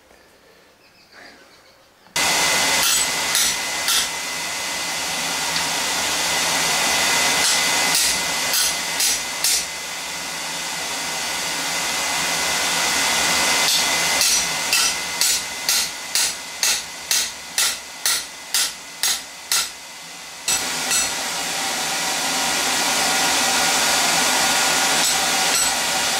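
A forge's electric air blower starts about two seconds in and runs steadily. Over it, a hammer strikes hot steel: a few scattered blows at first, then a steady run of about two blows a second for several seconds past the middle.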